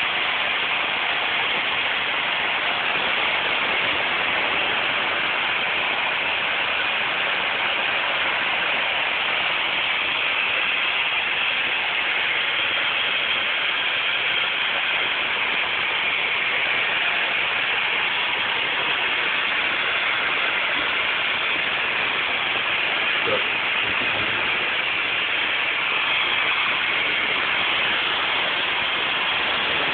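3D-printed plastic model turbofan engine driven by compressed air: a steady, loud rushing hiss of air blowing through the spinning fan and turbine blades.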